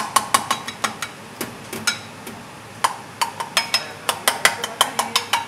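Metal ladle and knife clinking against an aluminium bowl and a steel serving tray as boiled lamb's head meat is cut and ladled out. A few sharp ringing clinks at first, then a quicker run of several clinks a second in the second half.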